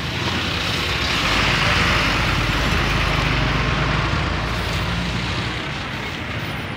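Road traffic noise: a motor vehicle passing, its sound swelling about a second in and fading away over the next few seconds, over a steady low engine hum.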